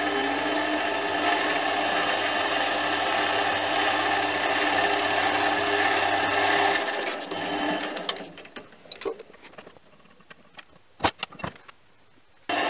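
Mini lathe motor and spindle running steadily with a whine, then switched off about seven seconds in and spinning down. A few sharp clicks and knocks follow in the quiet, and the running sound comes back abruptly near the end.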